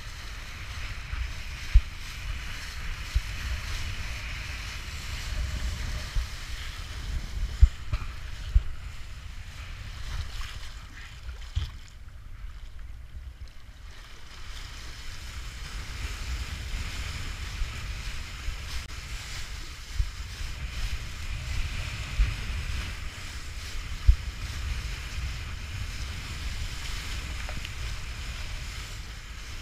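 Wind buffeting the microphone of an action camera worn by a kiteboarder as the board skims choppy water, with the hiss of spray and water under the board, which fades briefly about halfway through. Scattered sharp thumps break through, from gusts hitting the microphone or the board slapping the chop.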